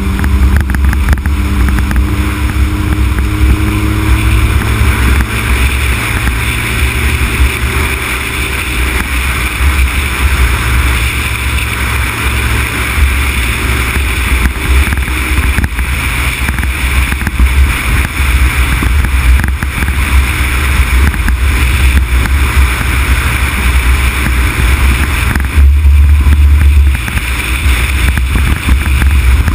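Heavy wind buffeting and road noise on the microphone of a camera mounted outside a Honda Civic Type R EK9 driving at speed. The car's four-cylinder engine note shows through faintly for the first several seconds, then is lost under the wind, which grows louder for a moment near the end.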